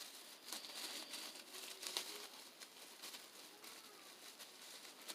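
Faint crinkling and small clicks of plastic packaging being handled while boxed miniature figures are unwrapped.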